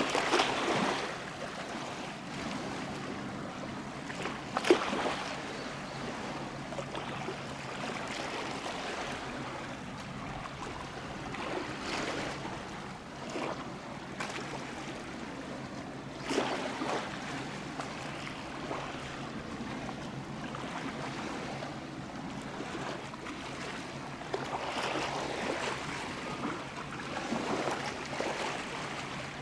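Wind and water noise by the sea, steady with several brief louder surges; no ship's horn sounds.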